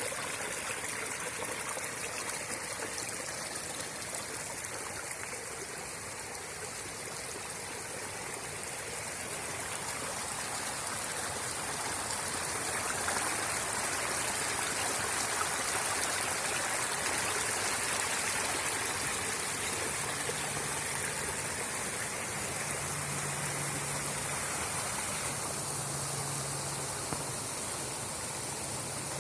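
Small creek running, a steady rush and trickle of water over stones. A faint low hum comes and goes in the last third.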